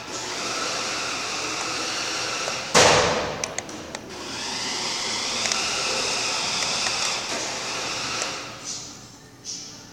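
Small electric motor and gears of a toy radio-controlled pickup truck whining, the pitch rising and falling as it speeds up and slows down. A loud knock about three seconds in, and the whine dies away near the end.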